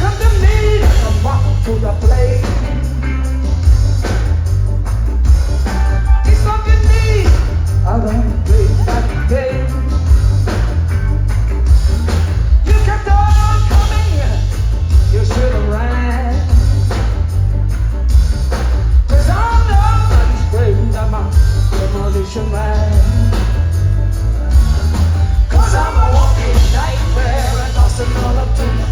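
Live band playing a rock song with a woman singing lead, over loud, heavy bass and drums.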